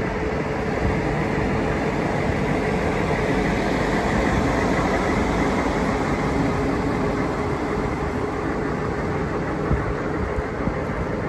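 Humvee's turbo-diesel V8 idling steadily, a constant low rumble with a steady hum and a faint whine over it.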